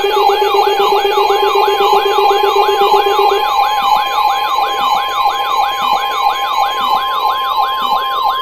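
Electronic weather-alert tones from weather radio equipment: a siren-like tone sweeping down and up about three times a second. It is joined by a steady low warbling tone that stops about three seconds in, and near the end by a steady tone of about 1050 Hz, the pitch of the NOAA Weather Radio warning alarm that comes before a broadcast warning.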